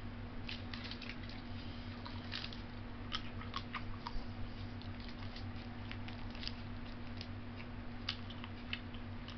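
A man chewing a Slim Jim meat stick with open-mouth smacks and clicks coming at irregular moments, over a steady low hum in the room.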